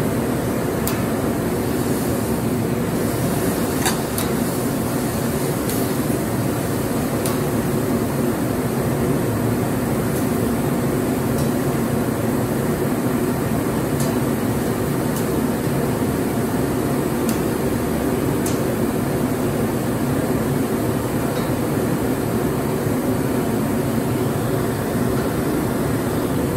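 Steady rushing noise of a large round Mongolian-barbecue griddle, with noodles and vegetables sizzling on the hot iron, and a few scattered sharp clicks as the long wooden cooking sticks strike the griddle.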